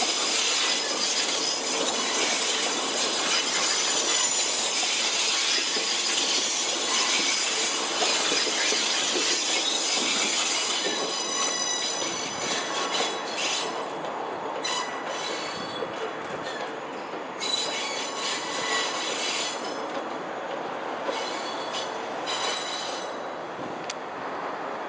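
Steel wheels of a train of DL class diesel locomotives squealing against the rails over the running noise. The high squeal is steady at first and breaks up into short on-and-off spells about halfway through.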